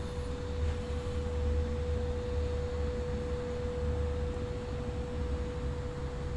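A steady high whine held at one pitch, over a low rumble.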